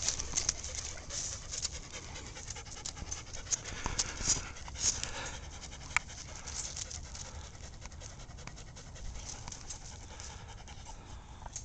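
Leonberger dog panting up close in quick, uneven puffs that fade toward the end, with a few sharp crackles in the middle.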